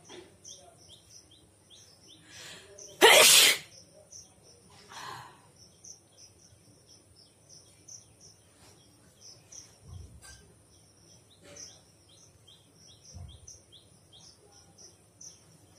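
A person sneezes once, loudly, about three seconds in, with softer breaths just before and after. Quick high chirps repeat faintly in the background.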